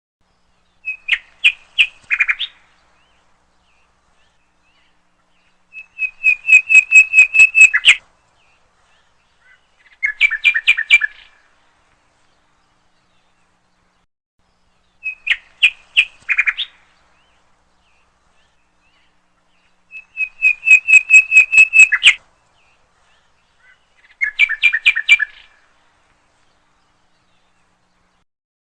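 Bird chirping in short bursts of rapid chirps and trills with silence between them. The same three phrases come back about halfway through, as in a looped recording.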